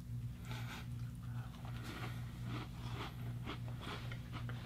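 Faint chewing and crunching of a flaky snack, an irregular scatter of small crackles, over a steady low hum.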